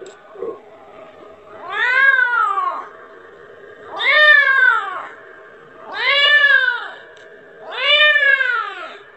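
Kitten meowing four times, about every two seconds, each call rising then falling in pitch: a kitten calling for its mother, wanting milk.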